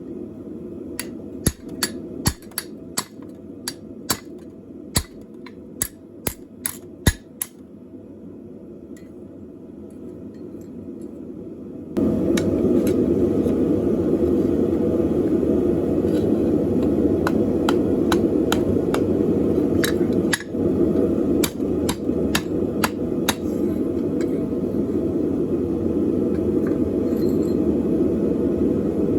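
Hammer blows on steel on an anvil: irregular sharp strikes, typical of punching mounting holes through a flat steel bar. A steady rushing noise runs underneath and becomes suddenly louder about twelve seconds in, with further hammer strikes after it.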